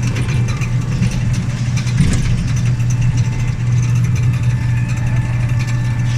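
Engine of a passenger train running steadily with a low, even hum.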